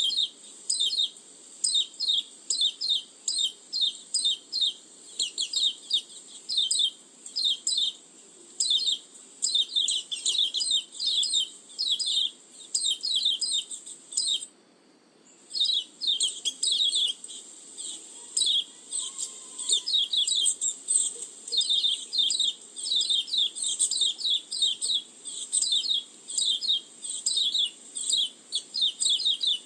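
White-eye (pleci) lure call: an unbroken run of short, high chirps, several a second, with a pause of about a second halfway through.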